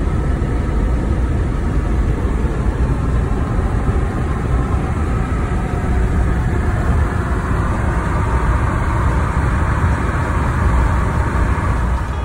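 Steady road noise from inside a moving car's cabin: tyre and engine rumble, heaviest in the low end.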